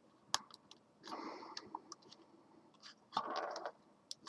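Plastic case of a Nikon Coolpix L22 compact camera being pried apart along its edge by thumbnail: a sharp click, then two short stretches of faint crackling, scraping plastic as the clips work loose, with a few small ticks.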